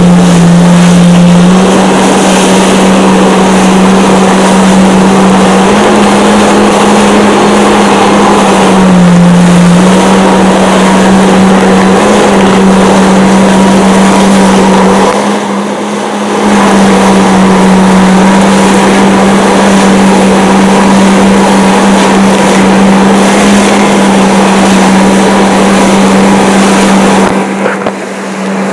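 Jet ski engine running under way at a steady throttle, with a constant drone that shifts slightly in pitch now and then, over the rush of water under the hull. The sound drops briefly twice, about halfway through and near the end.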